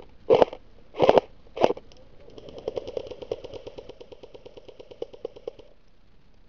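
Airsoft gun firing: a few short bursts in the first two seconds, then a long full-auto burst of about three and a half seconds, a rapid even rattle of about ten shots a second that stops abruptly.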